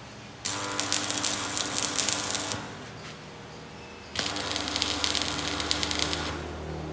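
Electric arc welding crackling in two bursts of about two seconds each, with a steady hum under each burst.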